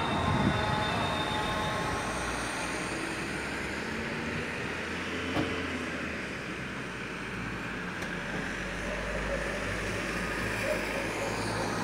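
Steady urban street background of distant traffic rumble during a pause between phrases of the call to prayer, the end of the previous sung phrase dying away in the first second or two.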